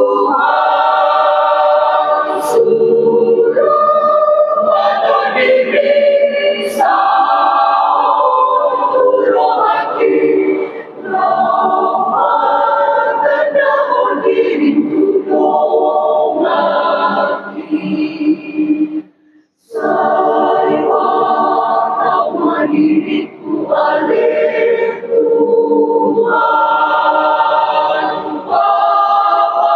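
Mixed church choir of men's and women's voices singing together under a conductor, with one short full break about two-thirds of the way through before the singing goes on.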